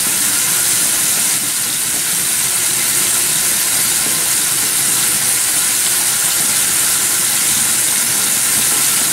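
Facial steamer running with a steady, high hiss of steam.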